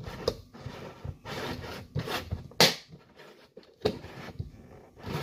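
Plastic lid being fitted onto a round plastic gerbil sand bath: plastic rubbing and scraping against plastic, with several sharp clicks, the loudest a little under three seconds in.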